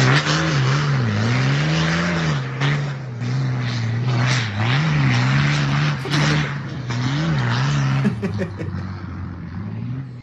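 Desert rally truck's diesel engine revving hard, its pitch rising and falling again and again as the truck powers up and across sand dunes, over the hiss of spraying sand. It eases off somewhat near the end.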